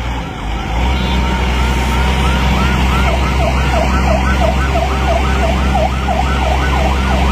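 A police car's siren in a fast yelp, sweeping up and down about three times a second, starting about a second in. Under it runs the steady low rumble of vehicles moving on the road.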